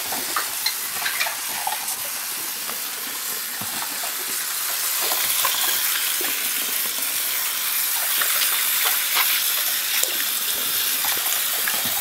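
Tap water running into a full sink while hands swish and rinse the plastic cyclone and filter parts of a Dyson V6 vacuum, with small splashes and light plastic knocks. The water gets a little louder about five seconds in.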